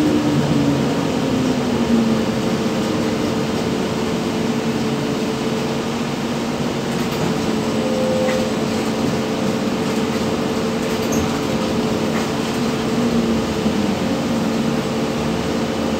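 Inside the cabin of a moving 2000-built ZiU-682G-012 trolleybus: steady running noise with an electric whine that falls in pitch over the first couple of seconds as the trolleybus eases off, then holds as a steady hum.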